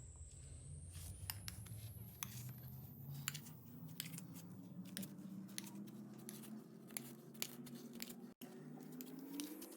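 Slime being mixed and worked by hand, giving faint, irregular sticky clicks and crackles, over a faint hum that slowly rises in pitch near the end.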